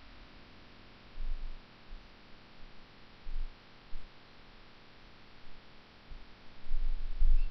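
Faint steady hiss with a few dull low thumps and a longer low rumble near the end, from a hand pressing a RAM stick into its motherboard slot and handling the board.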